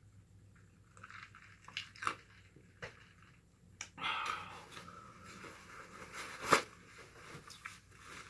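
Close-up eating sounds: roast chicken being pulled apart and chewed, with a few sharp clicks, the loudest about six and a half seconds in.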